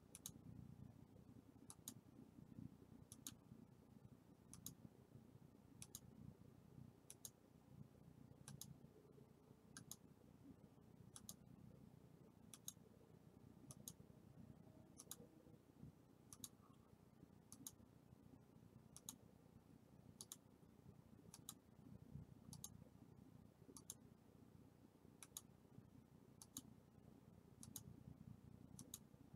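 Faint, evenly spaced single clicks, about one every second and a third, from a computer mouse clicking to bring up each new number of the count, over quiet room tone.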